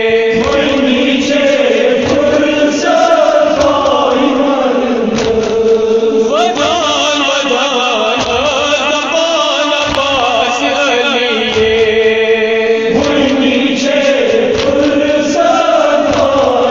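Kashmiri nohay, a Muharram lament, chanted by voices in a slow melody of long held notes that glide up and down.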